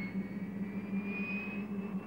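C-130 Hercules's turboprop engine running on the ground, propeller turning: a steady low drone with a high turbine whine that rises slowly in pitch.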